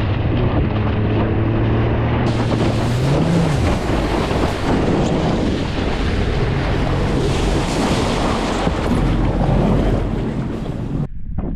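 Heavy wind buffeting and rushing water on a surfer's POV camera out in big surf, with a motor hum that rises in pitch about three seconds in and then fades under the rush. The rushing noise drops away abruptly near the end.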